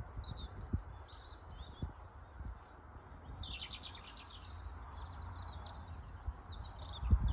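Small birds chirping and twittering over a steady low rumble, with a few soft thumps, the loudest near the end.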